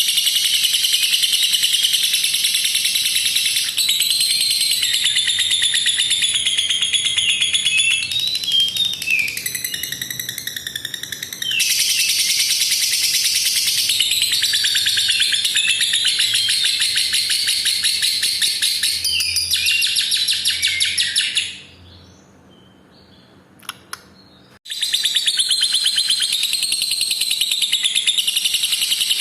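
Lovebird singing its long 'ngekek' chatter: a rapid, high-pitched trill held for many seconds at a stretch. It goes softer and choppier partway through, then breaks off for about three seconds near the end before starting again.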